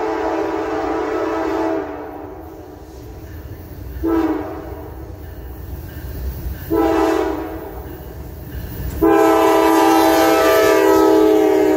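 Norfolk Southern diesel freight locomotive sounding its multi-note air horn as it approaches: a long blast that ends about two seconds in, two short blasts, and a long blast from about nine seconds on. The low rumble of the locomotive grows louder as it draws near.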